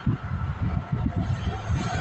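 Wind buffeting the microphone as an uneven low rumble, over a steady background of road-traffic noise.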